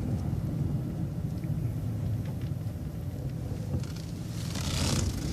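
City transit bus engine running with a steady low rumble heard from inside the bus, with a brief hiss near the end.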